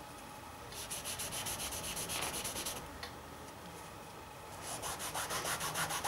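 Cloth rag rubbed quickly back and forth over an oil-painted canvas, wiping the paint. The quick scratchy strokes come at about eight a second, in two bouts: one from about a second in lasting two seconds, and another starting just before five seconds in.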